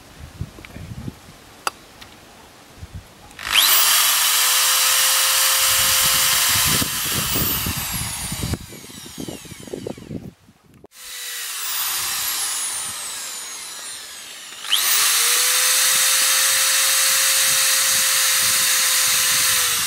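Power drill boring holes through metal jar lids backed by a block of wood. It runs twice, each time for about five seconds: the motor whines up to speed, the bit grinds through with a loud hiss, and the pitch drops as it stops.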